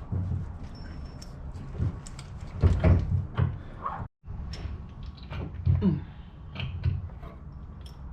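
Metal clunks and knocks as a new rear CV axle on a Polaris Ranger 700 Crew is pushed and turned to seat its splined end in the differential. The hits are irregular, with the loudest about three seconds in and again near six seconds.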